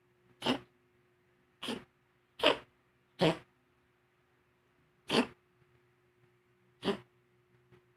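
A pet dog or cat sneezing over and over: six short, sharp sneezes at uneven intervals, with a longer pause about halfway through.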